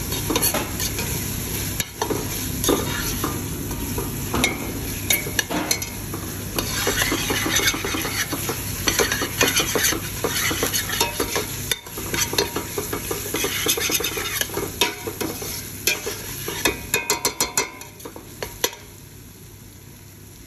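Steel spoon stirring a frying tomato and ginger-garlic masala in a stainless steel pot, over a steady sizzle. The spoon scrapes and clicks against the metal. The stirring stops about two seconds before the end, leaving a quieter sizzle.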